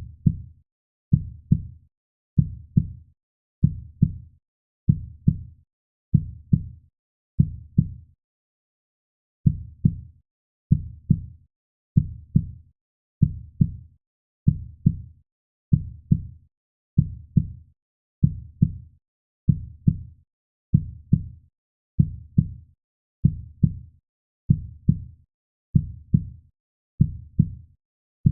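Heartbeat sound: slow, low double thumps (lub-dub) at about 45 beats a minute, with silence between beats and one beat left out about eight seconds in.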